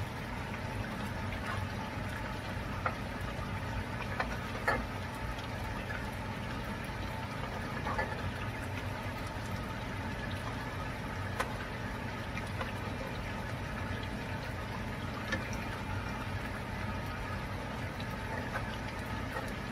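Pork adobo sauce simmering and bubbling in a frying pan over a steady low hum, with a few soft taps as peeled boiled eggs are set into the pan.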